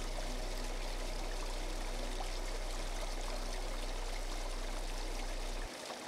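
Small forest waterfall falling onto stones in a shallow pool: a steady, even rush of running water. A deep low hum underneath cuts off suddenly near the end.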